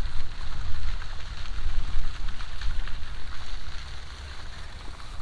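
Wind buffeting the microphone in uneven gusts, with a light crackling hiss over it; the buffeting eases about four seconds in.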